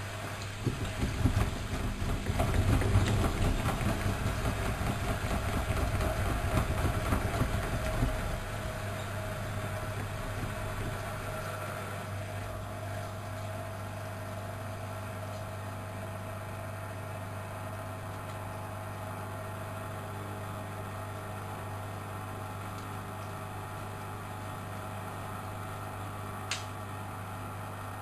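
Studio WM26AAA washing machine running. It is louder and uneven for the first eight seconds or so, then settles to a steady hum, with a single short click near the end.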